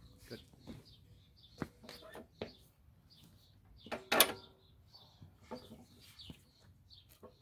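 Birds chirping faintly, with scattered clicks and knocks and one louder clatter about four seconds in.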